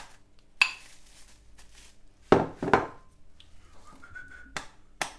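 A kitchen knife point jabbing through cling film stretched over ceramic bowls, and the bowls knocking on the worktop: a scatter of sharp taps and clicks, the loudest two close together about two and a half seconds in.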